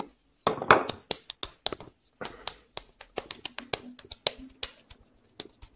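Hands patting and rubbing a ball of damp clay, an irregular run of sharp little taps with a short rubbing swish about half a second in.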